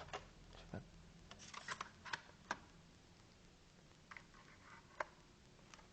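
Faint clicks and taps of a laptop hard disk being handled and fitted into its mounting bracket, with a single sharper click about five seconds in.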